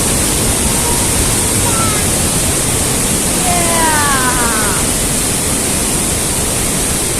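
Loud, steady rush of a mountain stream cascading through a gorge, with a faint voice heard briefly about halfway through.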